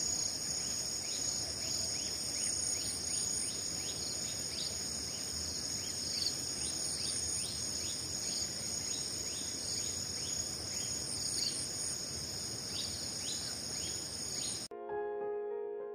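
A steady, high-pitched chorus of insects in a field, with a run of short falling chirps repeating over it. Near the end it cuts off suddenly and piano music begins.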